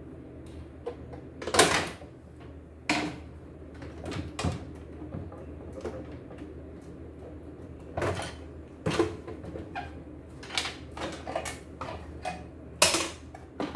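Irregular clicks, knocks and rattles of the plastic housing and parts of a CNY E960 embroidery machine being handled and taken apart by hand, the loudest knocks about two seconds in and near the end. A low steady hum runs underneath.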